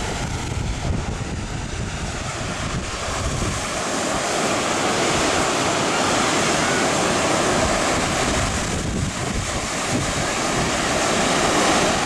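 Storm surf on the Baltic Sea breaking and washing up a sandy beach, a steady rushing wash that swells toward the end. Wind rumbles on the microphone in gusts during the first few seconds.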